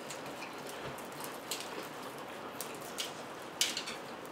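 Steady hiss of hard rain outdoors, heard from inside, with a few short clicks scattered through, the loudest near the end.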